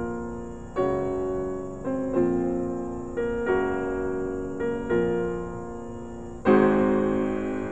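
Background piano music: slow chords struck about once a second, each fading away, with a louder, fuller chord near the end.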